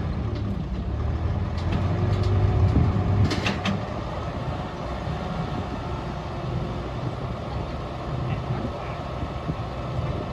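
Heavy machine's diesel engine running steadily, louder for the first three and a half seconds and then settling lower, with a couple of sharp clanks about three and a half seconds in.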